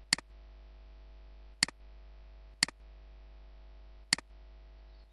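Computer mouse clicking: five single sharp clicks, about a second to a second and a half apart, over a steady low hum.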